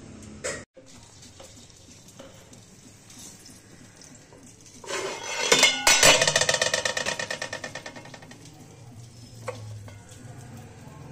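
A steel bowl clatters against a metal pot, then rattles quickly and rings as it rocks to rest, dying away over a couple of seconds. A single clink follows near the end.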